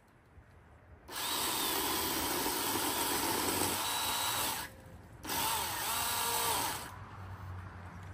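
Cordless electric pole tool's motor running in two bursts: about three and a half seconds, a half-second pause, then about a second and a half more.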